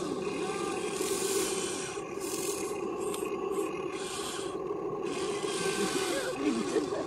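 Motors of a Huina 1593 RC excavator whining steadily as the boom and bucket work. The bucket scrapes and rasps through dry dirt in several short bursts.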